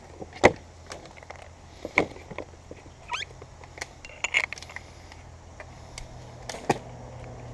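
Sharp clicks and knocks of a paintball marker being handled, lifted from its hard foam case and having its barrel fitted, the loudest about half a second in. A steady low hum runs underneath.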